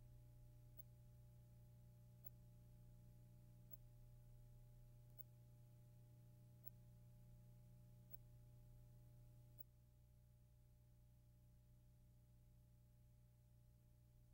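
Near silence: a faint steady low hum, with faint ticks about every one and a half seconds that stop about ten seconds in, where the hum also drops a little.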